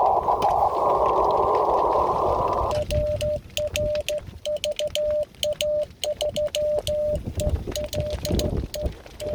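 Amateur radio receiver audio on the 47 GHz band: a rushing band of hiss that stops about two and a half seconds in. It gives way to a clear steady tone keyed on and off as Morse code (CW).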